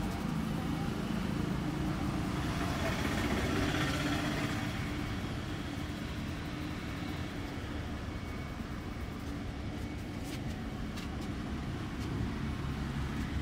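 Street traffic: a steady rumble of passing vehicles, with one growing louder and fading away a few seconds in.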